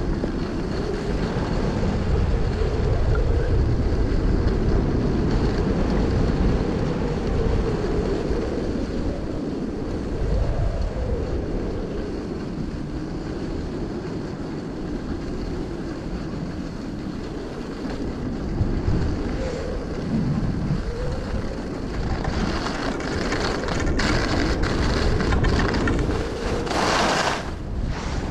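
Wind buffeting the microphone in a steady low rumble. From about 22 seconds in a harsher hiss joins, strongest for a moment near the end.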